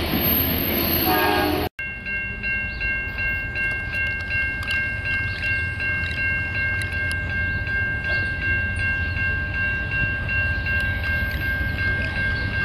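A railroad bell ringing steadily at about three strikes a second, starting about two seconds in, over the low rumble of an Amtrak diesel locomotive standing at the station.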